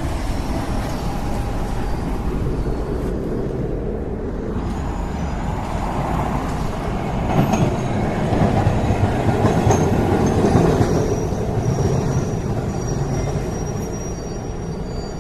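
Rail car running along the track, a steady rumble that swells and then eases off, with thin high wheel squeals in the second half.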